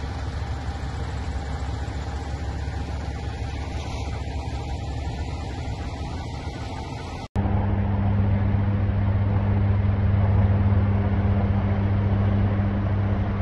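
Vehicle engines running steadily. A sudden cut about seven seconds in is followed by a louder, steady low hum.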